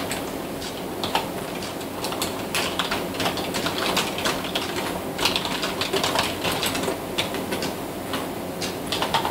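A dense, irregular run of small clicks and knocks, several a second.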